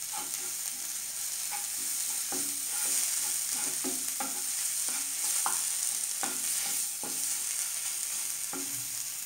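Onion-ginger-garlic paste and ground spices frying in oil in a pan, with a steady sizzle. A wooden spatula scrapes and stirs across the pan in repeated short strokes.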